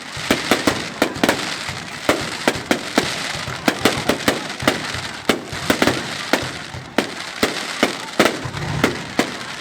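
Fireworks display: many sharp bangs and crackles going off in quick, irregular succession over a continuous hiss.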